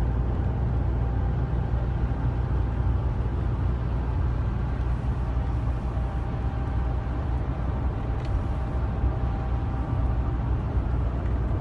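Steady low rumble of a tour coach in motion, engine and road noise heard from inside the passenger cabin, with a faint steady whine above it.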